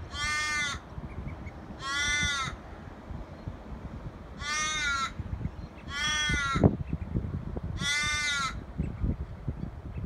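A crow cawing five times, each caw about two-thirds of a second long and rising then falling slightly in pitch, spaced one to two seconds apart. A low gusty wind rumble on the microphone runs underneath.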